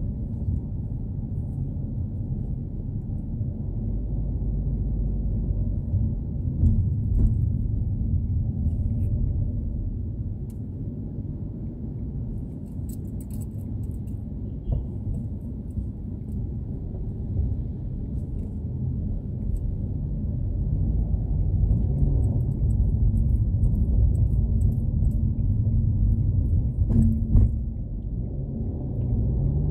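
Steady low road and engine rumble heard inside a moving car. It eases off about a third of the way in as the car slows through a toll booth, then builds again as the car picks up speed, with a few light clicks and rattles around the middle.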